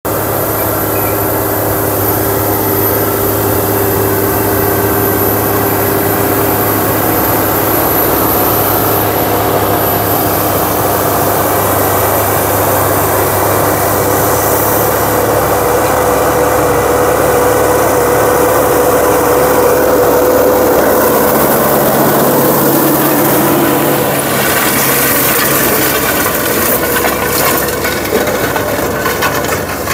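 Caterpillar D6T crawler dozer's diesel engine running steadily under work, its pitch shifting slightly about twenty seconds in, with irregular clatter near the end.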